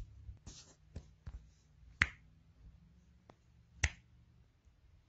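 About six short, sharp clicks at uneven intervals, the two loudest about two seconds in and just before four seconds in.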